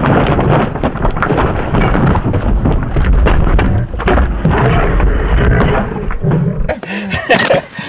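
Loud, rushing rumble of wind buffeting the microphone, cutting off abruptly about seven seconds in.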